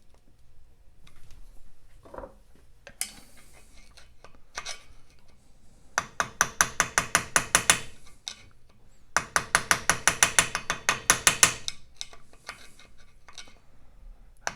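Socket ratchet wrench clicking in two quick runs, about ten clicks a second, a few seconds apart, with lighter metal scrapes and knocks before them: the 1/4 inch Whitworth nuts on the Norton Atlas crankshaft flywheel bolts being backed off.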